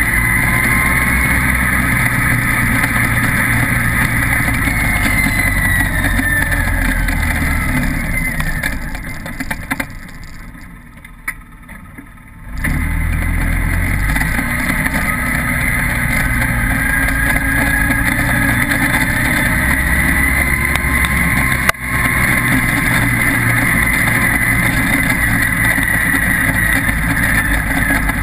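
Side-by-side utility vehicle running as it drives over a dirt track, with a whine that rises and falls as it speeds up and slows. It fades to a quieter lull for a couple of seconds about ten seconds in, then picks up again suddenly. There is a single sharp click a little past twenty seconds.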